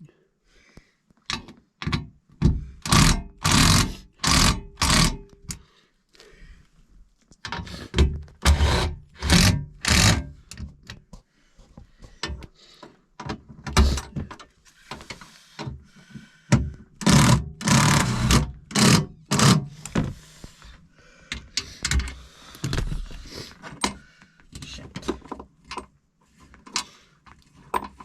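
Power drill-driver running screws into the truck's sleeper floor in short trigger bursts, securing the refrigerator's base plate. The bursts come in several runs, with a faint motor whine under some of them.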